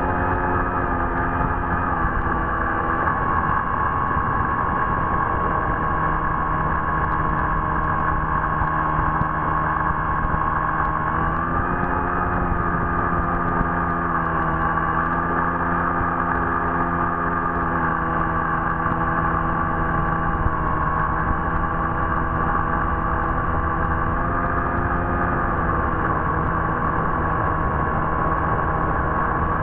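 Electric motor and propeller of an FPV model aircraft, heard through the onboard camera: a steady whine that rises and dips slightly in pitch with throttle, over wind and rushing-air noise.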